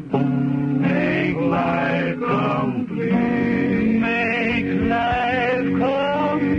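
A group of men singing a slow cowboy ballad in close harmony, with acoustic guitar, holding long notes.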